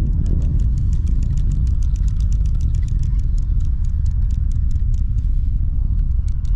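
Rocket launch heard from the water: a loud, steady, deep rumble. A fast, even ticking rides on top of it and pauses briefly near the end.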